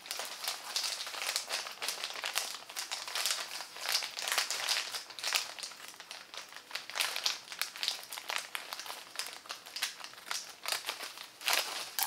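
Scissors cutting through a thin plastic poly mailer bag, the plastic crinkling and rustling in a run of irregular short crackles as the bag is handled.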